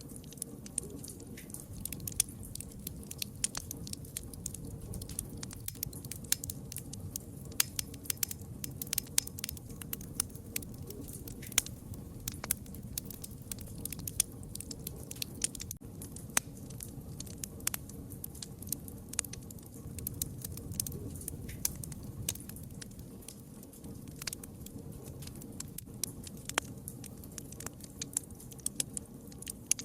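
Wood fire crackling: a steady low rumble of burning with frequent, irregular sharp pops and snaps.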